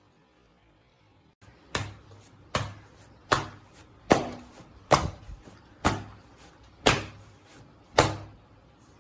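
Kerala parotta dough being swung and slapped down onto the work surface again and again to stretch it thin: eight sharp slaps, roughly one a second, starting about two seconds in.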